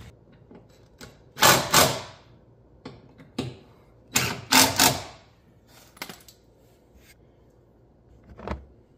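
Cordless DeWalt driver running in short bursts, tightening the bolts that mount a winch to the front of a side-by-side. Two bursts come about a second and a half in and three more around four to five seconds in, with a few lighter clicks between.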